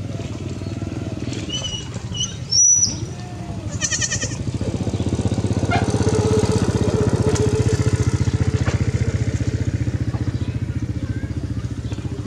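A small engine running, with a rapid even pulse. It grows louder about halfway through and eases off near the end. A brief sharp knock, the loudest moment, comes about two and a half seconds in.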